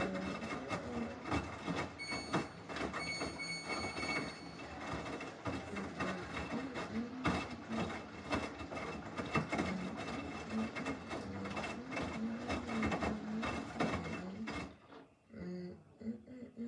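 Samsung washing machine running mid-cycle with a busy mechanical rattle and clatter, which drops away near the end.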